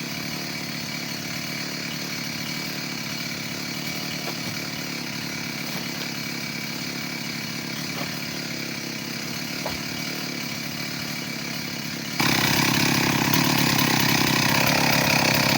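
Two-stroke chainsaw running steadily at low speed, then throttled up suddenly about twelve seconds in and held at high revs.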